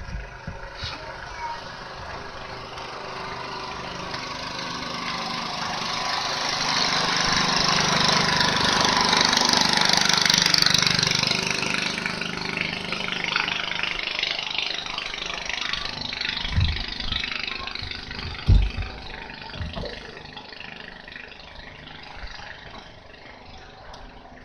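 Engine noise of a passing motor vehicle, swelling over several seconds and then fading away. A few dull knocks follow near the end.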